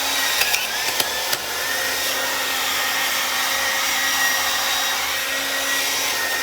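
Revlon RVDA5036 hair dryer running: a steady rush of blown air with a thin motor whine, with a few sharp clicks in the first second and a half.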